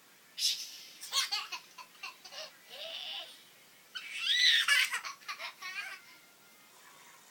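Small child's vocal play: short breathy snore-like snorts and giggles, then a long, very high-pitched squeal about four seconds in.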